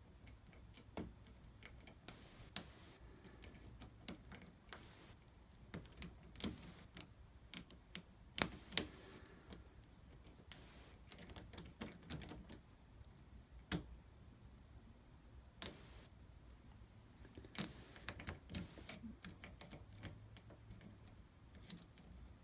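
Lock pick and tension tool working the pin stack of a Medeco Keymark SFIC core: irregular small metallic clicks and ticks, now and then a sharper click, as pins are lifted and set.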